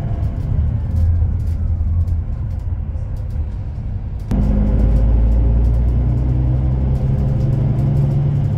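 Moving bus heard from inside the cabin: steady low engine and road noise with light rattles. A little over four seconds in it jumps abruptly louder to a deeper, steadier engine hum.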